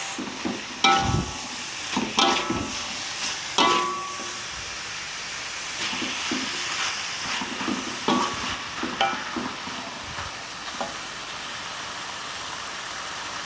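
Skipjack tuna and spice paste sizzling in a pan while a metal spatula stirs it, scraping and knocking against the pan with short ringing clanks. The fish is being fried down until dry. The strokes come thickest in the first few seconds, a few more come later, and near the end only the steady sizzle remains.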